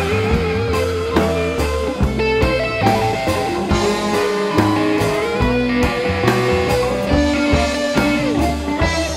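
Instrumental passage of a bluegrass-flavoured rock song: plucked mandolin and guitar over bass and a steady drum-kit beat, with a sustained melody line on top.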